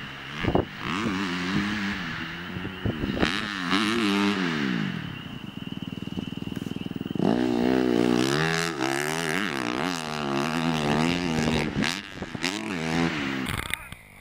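Suzuki RM-Z250 dirt bike's single-cylinder four-stroke engine being ridden hard, revving up and down with the throttle, rising and falling in pitch. It runs from about half a second in to about five seconds, dips, then runs again from about seven to thirteen seconds.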